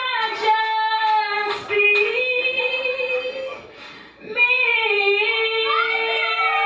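A woman singing solo into a microphone, holding long notes that bend and slide between pitches, with a short breath break about four seconds in.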